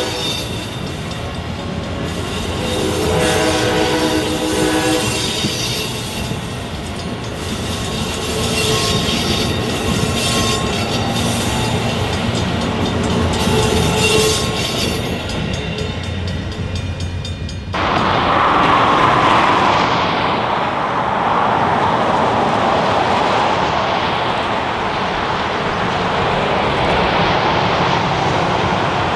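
Amtrak Vermonter passenger train going by: horn blasts in the first few seconds, then wheels clicking and squealing on the rails. About 18 seconds in, the sound cuts abruptly to a steady loud rushing noise.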